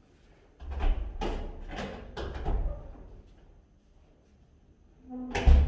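A run of knocks and dull thuds over about two seconds, then quiet, then one sharp knock near the end.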